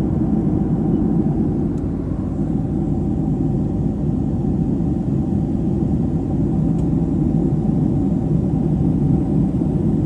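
Jet airliner cabin noise in flight: a steady low roar of the engines and rushing air, with a faint steady hum over it.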